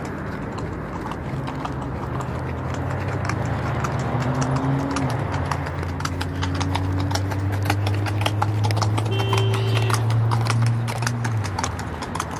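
Horse walking on dirt ground, its hooves clip-clopping in a steady run of strikes. Under it, a low steady hum starts about a second in, rises slightly in pitch, and stops near the end.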